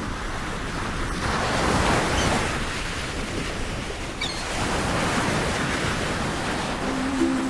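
Ocean surf: a steady wash of waves that swells louder about a second in and again about four and a half seconds in. Music begins faintly near the end.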